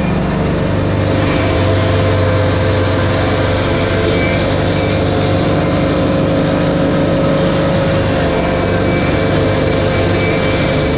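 Engine of a straw blower running steadily while straw is spread. Its low note shifts slightly about a second in.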